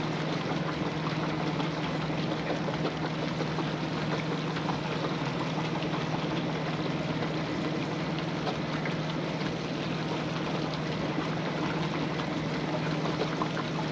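Vintage laundry machines running: a steady motor hum under a constant noisy churn with small clicks, unchanging throughout.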